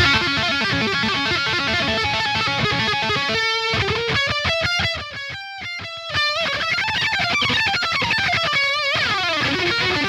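Heavily saturated electric guitar lead through the Mars Plexi #1 amp simulator: fast runs, a rapidly re-picked note a few seconds in, then held notes with wide vibrato, then quick lines again.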